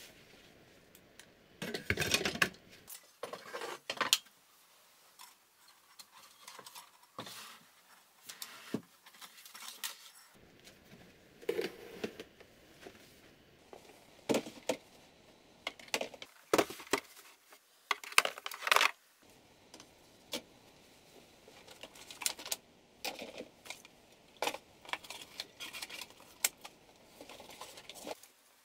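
Equipment and boxes being set down and shifted about on a shelf: irregular knocks, clinks and rattles in scattered bursts, with the loudest clatter about two seconds in and again past the middle.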